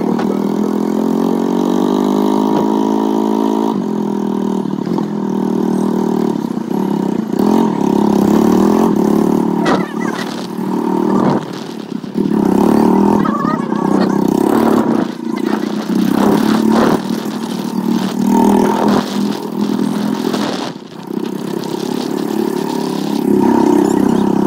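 A vehicle engine running while on the move, its pitch rising over the first few seconds as it speeds up, then holding with uneven changes in speed.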